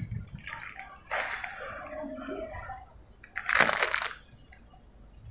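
Thin plastic packet of meat curry gravy being opened and poured by hand: plastic rustling and gravy sloshing in two bursts, the second, about three and a half seconds in, the louder.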